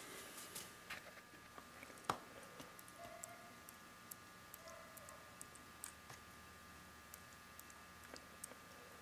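Faint, scattered light clicks and ticks from the opened Triumph Spitfire 1500 differential as its carrier and gears are turned by hand, with one sharper click about two seconds in, over a faint steady hum.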